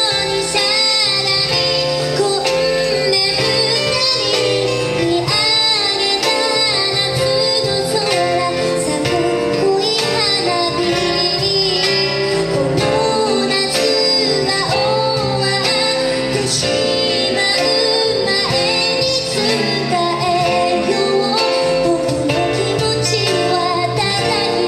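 A woman singing a slow ballad live, holding long notes with vibrato, backed by a band of keyboard, acoustic guitar, bass and percussion.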